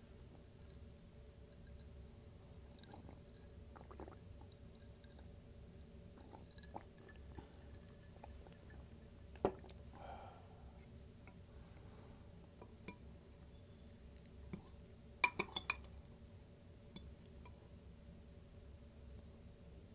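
Close-miked eating of a chicken bowl: sparse soft chewing and small ticks over a steady low hum, with a quick run of four or five sharp clicks about fifteen seconds in, the loudest sound.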